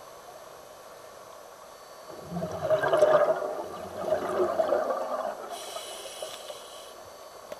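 Exhaled air bubbling out of a scuba regulator underwater: a loud gurgling rush of bubbles starting about two seconds in, swelling twice over about three seconds and dying away. A faint high hiss follows near the end.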